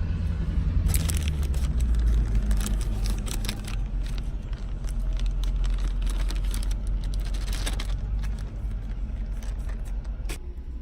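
Plastic bag crinkling and rustling as a used dental impression mold is handled and put into it, in irregular clicks and scrapes. A steady low rumble runs underneath.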